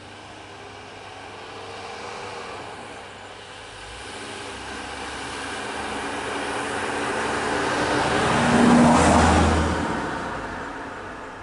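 A car driving past close by, its engine and tyres getting louder to a peak about nine seconds in, then fading away.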